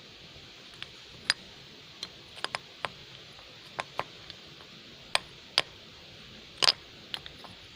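About a dozen sharp, irregular clicks and taps, the loudest near the end: metal tongs knocking against the graphite mould and the solid silver-solder ingot as it is handled for quenching.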